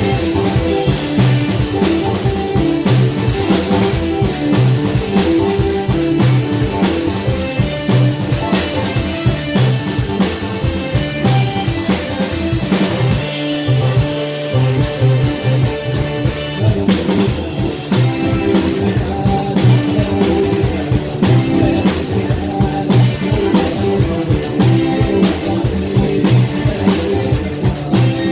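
Live band playing an instrumental passage: a drum kit with kick, snare and rimshots keeps a steady beat under bass and other instruments, with no vocals.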